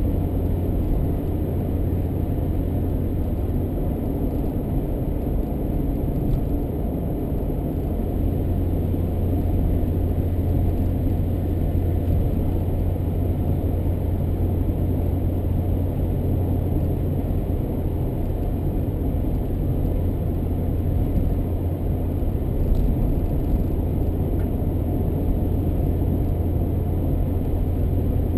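Car driving steadily along the road: a constant low rumble of engine and tyre noise with no changes in pace.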